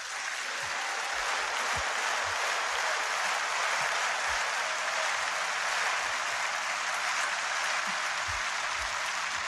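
A large audience applauding, swelling quickly at the start and then holding steady.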